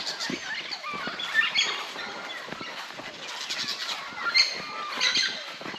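Many birds calling at once: a busy mix of short chirps and whistles from several birds, with a few small thumps underneath.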